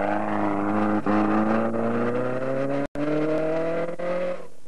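Engine of an off-road race buggy accelerating away, its pitch rising steadily. The sound drops out briefly about three seconds in.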